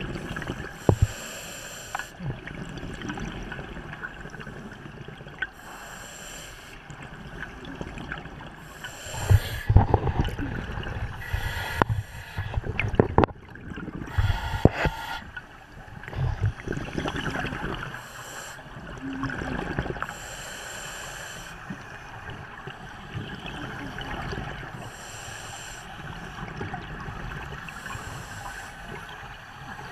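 Scuba diver's breathing through a regulator, heard underwater: a hiss on each breath in, every few seconds, and bubbling rumbles as the air is breathed out. A louder, busier stretch with knocks comes in the middle.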